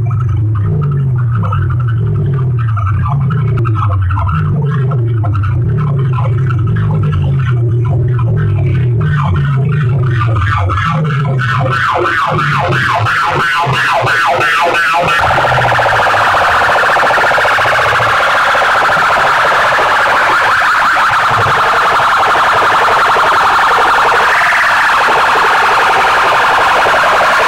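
Stacked horn loudspeakers of a DJ sound-box rig blasting electronic sound at full volume. First comes a repeating pattern of stepped low bass notes. Rapid even pulsing follows about eleven seconds in, then a dense, harsh high sound from about fifteen seconds.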